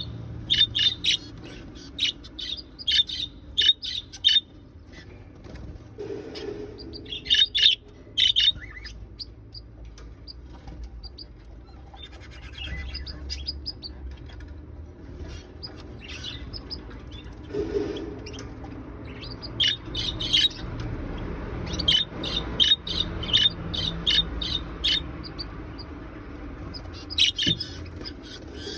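Budgerigar singing and calling: clusters of loud, sharp chirps broken up by stretches of softer warbling chatter.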